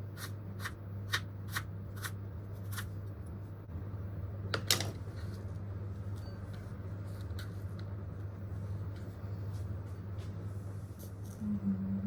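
Knife chopping vegetables on a cutting board, a steady run of sharp chops about two a second that stops about three seconds in. One louder knock follows and then a few light taps, over a steady low hum. A low wavering tone starts near the end.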